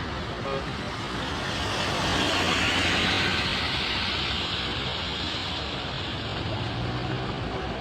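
Road traffic on a rain-wet road: a vehicle's tyre hiss swells about two seconds in and slowly fades, over a steady low rumble of engines.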